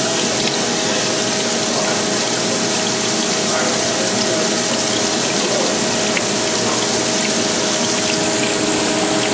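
Amada Wasino Meister V3 CNC surface grinder running under flood coolant while grinding a punch. A steady rush of coolant sounds over a constant machine hum.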